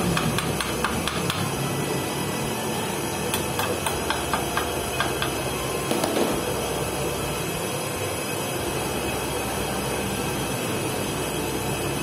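Hammer tapping a broken bolt stub in an engine crankcase: two runs of quick taps in the first half, over a steady background noise.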